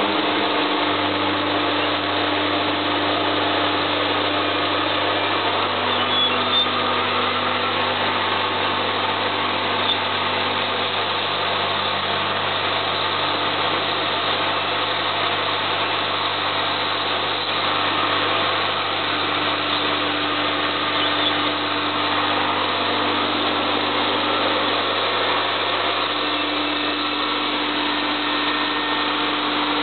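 Electric industrial abrasive vacuum unit running steadily: a constant hum from its motor and blower under a loud, even rushing noise, with no change in speed.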